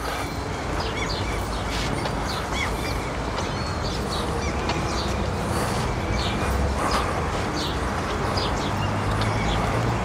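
Small birds chirping in short, repeated calls over a steady background of outdoor noise.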